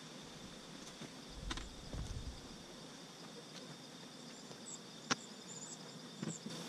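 Steady, high-pitched chirring of insects in late-summer vegetation, with a few light knocks and one sharp click about five seconds in from handling the wooden hive cover, and a brief low rumble about a second and a half in.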